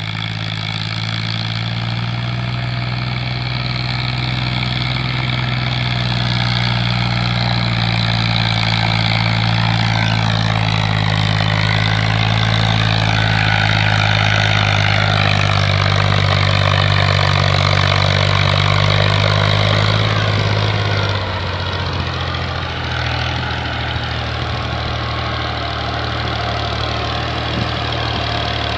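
Diesel engine of an orange New Holland tractor running steadily under load while hauling a heavily loaded sugarcane trailer. About two-thirds of the way through, its note drops and eases a little.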